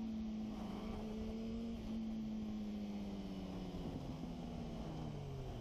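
Sport motorcycle engine running at speed on the road, with wind rushing over the microphone. Its note holds steady for the first couple of seconds, then falls gradually in pitch as the bike slows.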